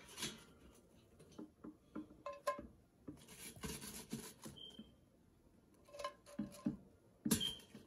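Metal kitchen tongs clicking and scraping in an air fryer basket while lifting out crinkle-cut fries, with light knocks as the fries and tongs touch a ceramic serving platter. The clicks come irregularly, a few at a time.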